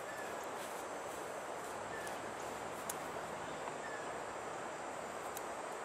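Outdoor riverside ambience: an even, steady rushing hiss with a faint short bird chirp repeating about every two seconds, and a small tick about three seconds in.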